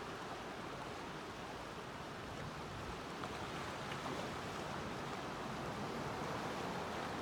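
Gentle Pacific Ocean surf: a steady wash of small waves breaking and rolling onto shore, swelling slightly in the second half.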